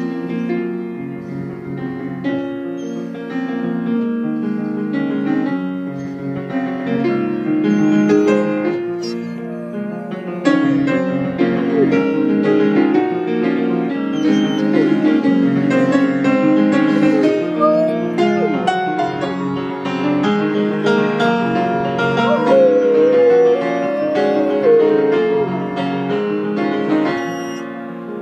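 Piano playing with a Great Pyrenees howling along. The dog gives several long howls that glide up and down over the notes, strongest in the second half. He is singing along to the music, not crying in pain.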